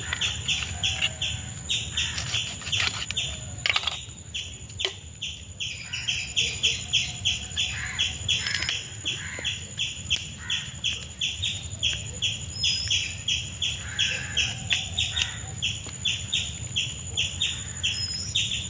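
Birds chirping: a steady run of short, repeated high chirps about three a second, with a couple of higher whistles. A few sharp clicks come through, from scissors snipping the fish.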